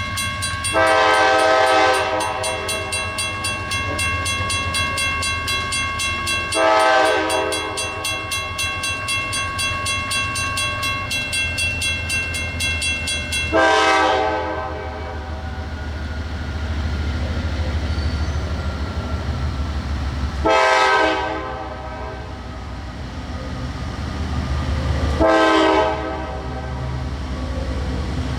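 Nathan K5LA air horn on a CSX CM44AC diesel locomotive sounding five blasts, the third one short, over the steady low rumble of the passing freight train. The horn chord sits lower in pitch from the third blast on, as the locomotive goes by.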